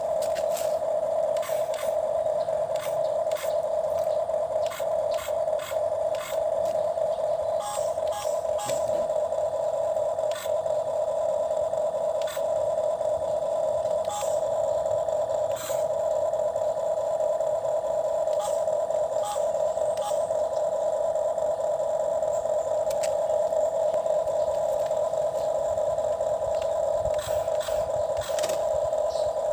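Small electric motor of a toy excavator running with a steady whine, with scattered light plastic clicks.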